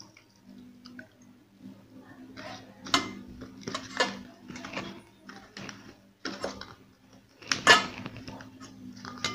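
Fingers handling shallots and garlic cloves in a small stainless steel bowl: a run of irregular clinks and scrapes against the metal, loudest about three quarters of the way through, over a steady low hum.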